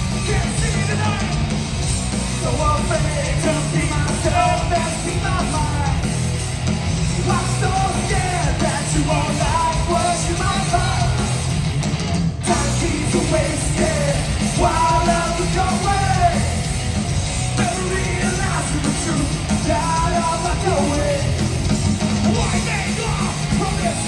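Live punk rock band playing loud, with shouted and sung vocals over guitars and drums, recorded from within the crowd.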